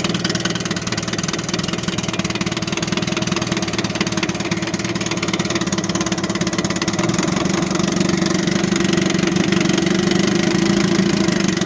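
1954 Johnson QD-15 10 hp two-cylinder two-stroke outboard running steadily in a water test barrel with a test wheel on, warmed up after a couple of minutes of running. It gets a little louder in the last few seconds.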